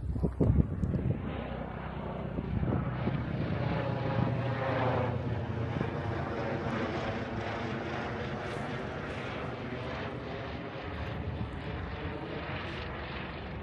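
A propeller aircraft engine passing overhead, its steady note swelling about four to five seconds in and slowly fading. Wind buffets the microphone in the first second.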